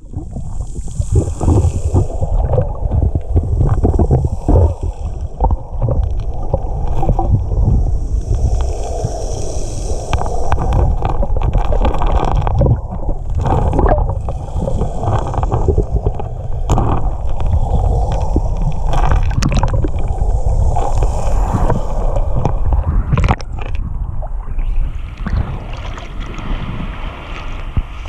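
Water heard through a submerged camera in shallow water over a cobble lake bed: a dense, muffled low rumble with many small clicks and knocks. About four seconds before the end it changes to a steadier hiss as the camera nears the surface.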